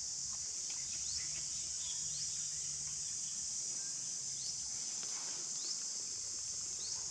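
Steady high-pitched insect chorus, with short rising chirps repeating about once a second.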